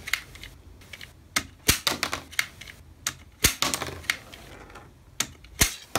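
Plastic toy cap-gun revolver fired by trigger pull again and again: a series of sharp plastic clicks and clacks from the hammer snapping and the cylinder turning, each shot only just pushing a rubber bullet out of the barrel to drop onto the tabletop.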